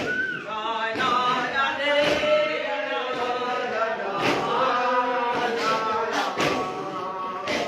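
Revival Zion worship: several voices chanting a hymn together, with heavy drum strikes at uneven intervals, about six through the passage.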